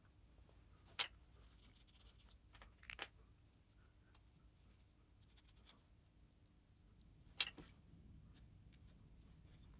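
Quiet handling of small wooden pulley parts on a workbench: three short, sharp clicks about a second in, three seconds in and again after seven seconds, over low room noise.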